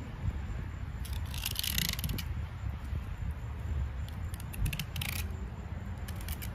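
Knife slicing along the back of a little tunny (false albacore), rasping through its tough skin in two short bursts, about a second in and again near five seconds, with small clicks and crackles in between. A low steady rumble lies underneath.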